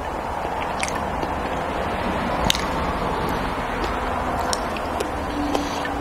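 Close-miked chewing of soft pancakes, with a handful of sharp clicks from a metal knife and fork against a ceramic plate, over a steady background hiss.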